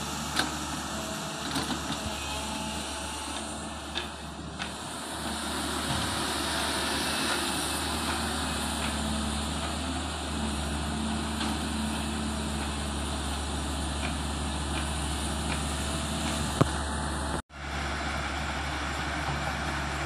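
Tata Hitachi 200 tracked excavator's diesel engine running steadily under load while digging soil, with a few sharp knocks. The sound drops out briefly near the end.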